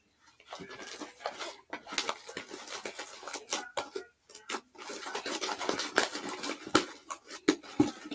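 Sticky slime being kneaded and pulled by hand in a bowl: a dense, irregular run of small wet clicks and pops, with a brief lull a little past the middle.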